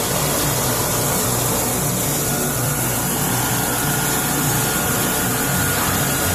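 Portable band sawmill running, its engine and band blade making a loud, steady mechanical noise, with a faint thin whine joining about two seconds in.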